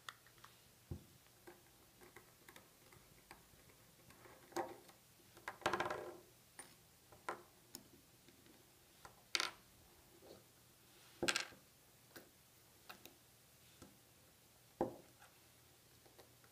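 Small metal parts of an Angelus L-style can-seamer pin assembly clicking and clinking as it is taken apart by hand: cap, washer, roll and bearing pieces handled and set down on a tabletop. Scattered light ticks, a short rattle about six seconds in, and two sharp bright clinks a little before and after the middle.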